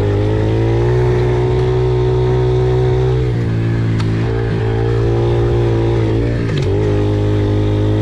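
A vehicle's engine running steadily under way, holding a constant pitch that steps to a slightly different speed about three seconds in and again near seven seconds.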